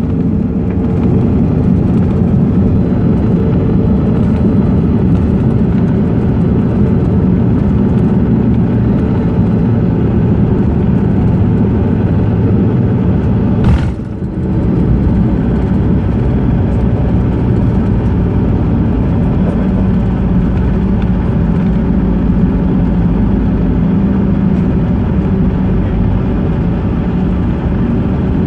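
Cabin noise of a jet airliner slowing on the runway just after touchdown: engine and airflow noise runs steady and low-pitched throughout. There is one sharp click about halfway through.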